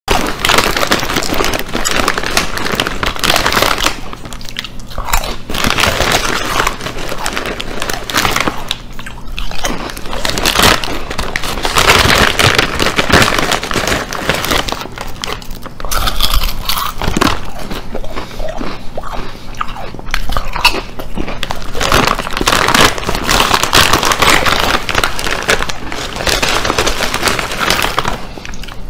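Crisps being bitten and chewed close to the microphone, a loud crisp crunching with a few short lulls, and the plastic crisp bag rustling as a hand reaches into it.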